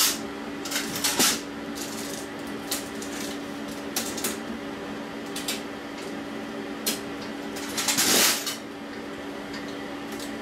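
A steady hum of room ambience, with scattered light clicks and rustles and one louder rustle about eight seconds in.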